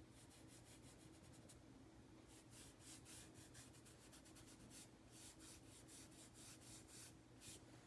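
Faint strokes of a PanPastel sponge applicator rubbing pastel onto paper, many short scratchy strokes a second, over a faint steady hum.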